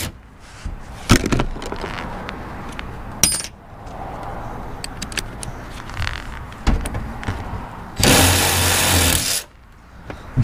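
Cordless drill running in one loud burst of about a second and a half near the end, drilling a hole in the van's roof panel. Before it there are a few sharp clicks and a short metallic ping.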